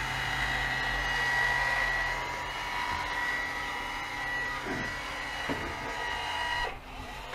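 DeWalt DCE580N cordless caulking gun's motor whining steadily on speed 3 as it drives the plunger and pushes sealant out of the tube, then stopping near the end.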